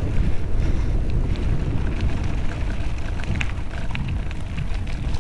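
Wind rushing over the microphone and tyres rolling fast over a dirt forest trail, with scattered small clicks and rattles from a Calibre Bossnut full-suspension mountain bike.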